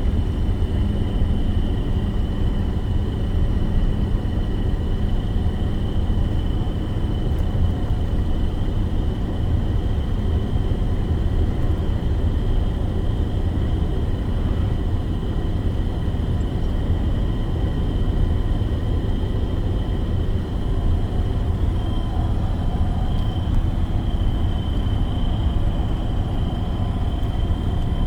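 Box truck on the move: a steady low engine and road rumble, with a thin, steady high whine over it.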